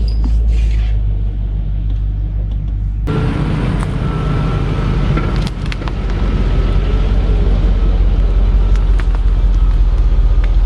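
Land Rover Discovery II's engine running under load as it drives off-road through mud, a steady low rumble. About three seconds in, the sound abruptly gets fuller and a little louder, with a few sharp knocks scattered through it.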